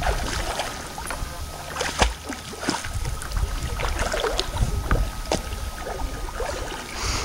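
Lake water splashing and sloshing as a young Alaskan Malamute swims and paddles, a run of short irregular splashes over a low rumble.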